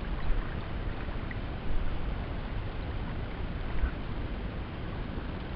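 Steady wind rumbling on the microphone over small waves lapping at the boat, with a few short, louder bumps.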